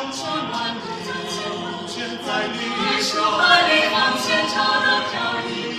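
Mixed men's and women's a cappella ensemble singing a pop arrangement in close harmony. Short, sharp hissing vocal-percussion strikes keep the beat about three times a second.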